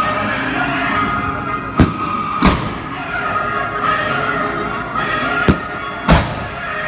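Fireworks going off in four sharp bangs, two close pairs, over music playing continuously.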